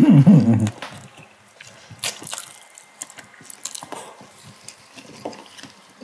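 Close-up wet eating sounds: buckwheat noodles slurped and chewed, with scattered light clicks of chopsticks against dishes. A brief voiced hum at the very start.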